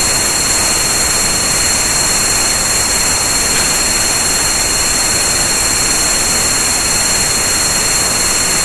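Generated tinnitus-masking sound: a steady, even hiss of noise with a gap cut out of it in the upper-middle pitches, and a few thin high steady tones held over it.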